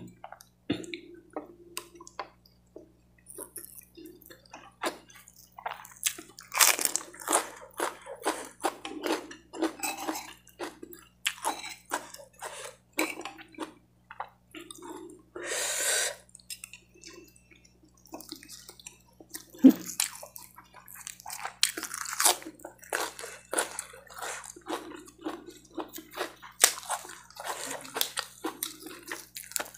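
Close-up wet chewing and crunching of raw lettuce leaves and spicy fried rice, in short irregular bursts with small clicks and smacks.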